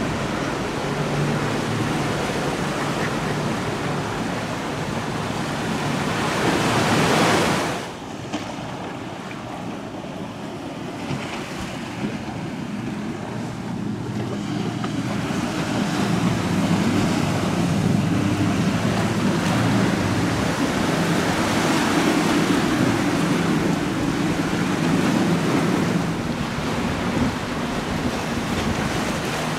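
Wind and waves mixed with the low drone of boat engines running through rough water. The wash swells, then drops off suddenly about eight seconds in, and builds again with a stronger engine drone later on.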